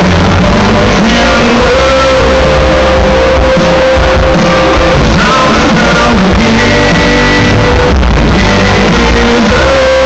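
Live country band playing loud, recorded on a phone in the crowd: electric guitars, bass, drums and fiddle, with a lead vocal. A long held note runs through much of it.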